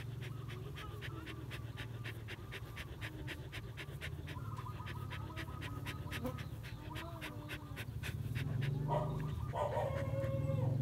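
A dog panting in quick, even breaths, about six a second. The sound grows louder near the end.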